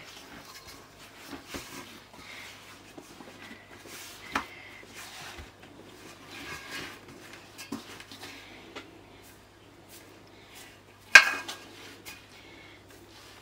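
Hands kneading soft yeast dough in an enamel basin, a quiet irregular working of the dough with a few light knocks against the bowl. About eleven seconds in, a metal utensil strikes the enamel bowl with one sharp clink, the loudest sound.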